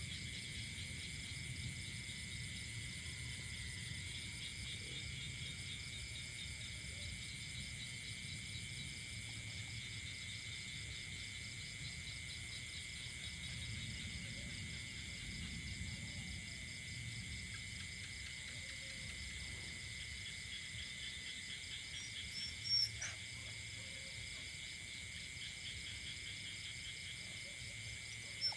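Night chorus of crickets and other insects, several steady high-pitched trills overlapping, some of them finely pulsing, over a faint low rumble. A couple of short high chirps break in about 23 seconds in.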